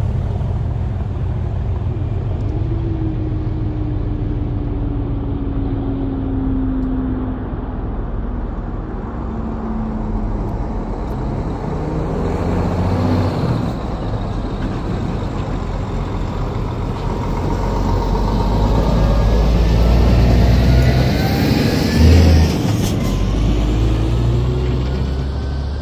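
Heavy lorry's diesel engine running, then driving across the level crossing and passing close, getting louder as it goes by. A single thump comes near the end.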